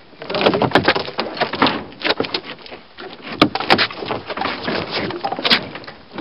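Wood and debris scraping, rustling and knocking as pieces of a torn-down garage are moved about, with several sharp clicks and knocks, the clearest about three and a half and five and a half seconds in.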